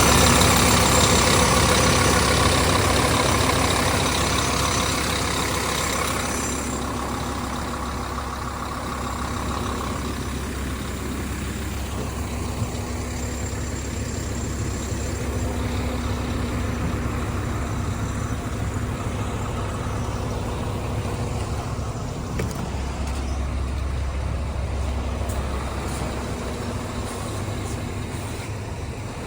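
Doosan DX300LC-5 hybrid excavator's diesel engine running, louder with a strong hiss for the first six seconds or so, then settling to a steady, quieter run.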